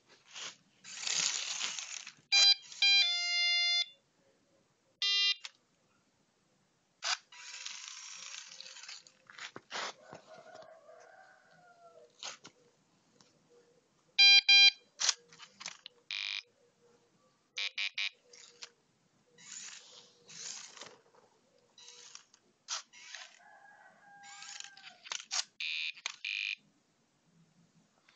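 Buzzer on a homemade Arduino robot, switched through a MOSFET, sounding short buzzy beeps and quick runs of notes several times over, between stop-start bursts of noise.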